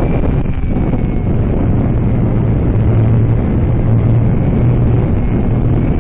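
RC flying wing's motor and propeller droning steadily, heard from on board under heavy wind rush on the microphone; the drone grows louder for a stretch in the middle.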